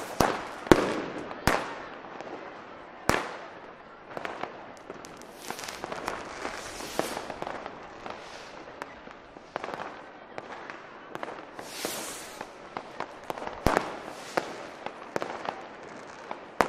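Fireworks and firecrackers going off: irregular sharp bangs, the loudest in the first second or so, over steady crackling, with a hissing whoosh about twelve seconds in.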